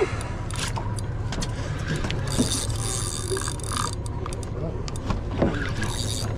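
Boat engine running steadily in a low hum, with scattered clicks and knocks on top.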